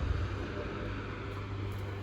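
Kintetsu electric train running past, a steady rumble with a low hum.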